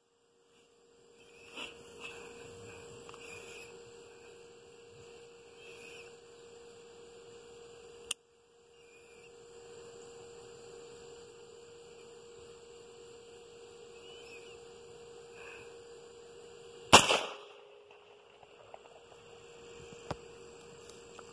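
Anderson AR-15 rifle firing .223 Remington: two sharp shots, a short one about 8 seconds in and a louder one with a ringing tail about 17 seconds in, over a steady hum with a faint high whine.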